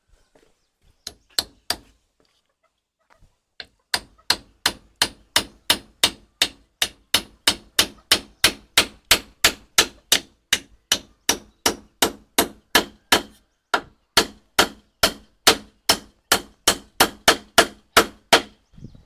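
Hammer blows with a ringing clang, a few strikes about a second in, then steady hammering at about three blows a second from about four seconds in.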